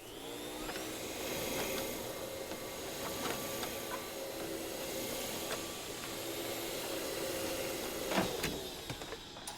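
Vacuum cleaner switched on: its motor spins up, runs steadily with a high whine and airflow hiss, then winds down near the end.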